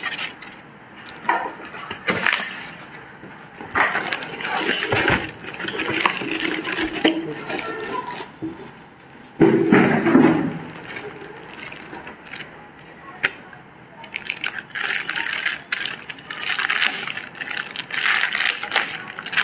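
Clear plastic wrapping crinkling and crackling as a boxed amplifier is lifted out of its cardboard carton and handled, in irregular bursts, with a duller, heavier handling sound about halfway through.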